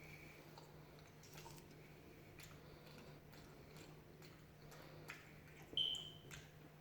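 Close-miked chewing and biting of deep-fried food, with scattered small crunchy clicks. A brief high squeak about six seconds in is the loudest sound.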